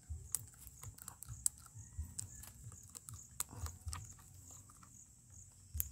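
Blue plastic strapping bitten and torn through with the teeth: irregular sharp clicks and snaps of the plastic, with a louder snap near the end.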